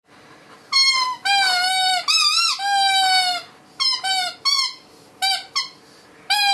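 Squeaky dog toy squeezed over and over, giving high, steady-pitched squeaks that dip slightly at the end. Four long squeaks come in the first few seconds, then shorter, spaced-out ones.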